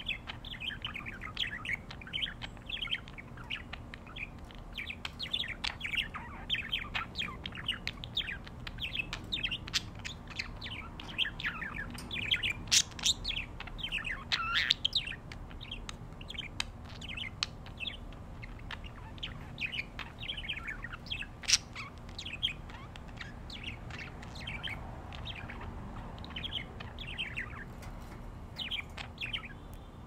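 Budgerigars chirping and warbling in a rapid, continuous stream of short calls, a little louder around the middle.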